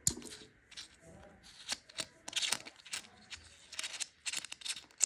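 Fingers prying at and opening the port cover on the side of a night-vision rifle scope's plastic body: a string of irregular clicks and short scratchy scrapes, with a sharp click right at the start.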